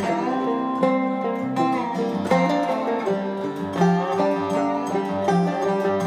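Background music: a plucked-string tune in a bluegrass style, with quick, evenly spaced notes.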